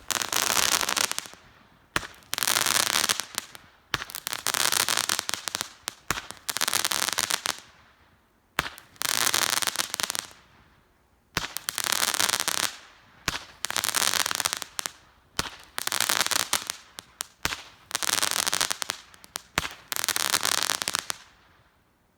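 Shogun Bonfire 10-shot firework cake firing: about ten shots roughly two seconds apart. Each is a sharp launch thump followed by a second or so of dense crackling from the crackling willow stars.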